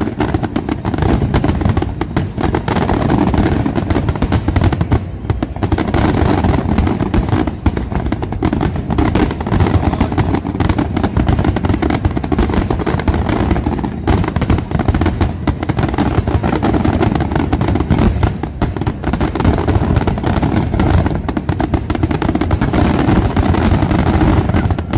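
Fireworks display barrage: rapid overlapping bangs and crackling aerial shells with no pause, dense and loud.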